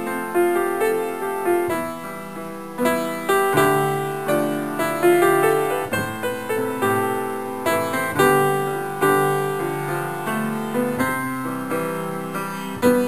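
Background piano music: a melody of struck notes, each fading before the next.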